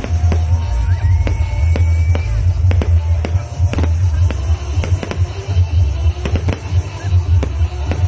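Fireworks going off in a rapid, irregular run of sharp bangs and cracks over loud music, with a rising whistle about a second in.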